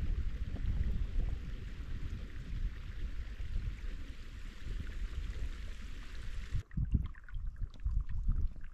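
Wind rumbling on the microphone over a steady hiss; about two-thirds in it gives way to a small mountain creek running over rocks, with gusts of wind still buffeting the microphone.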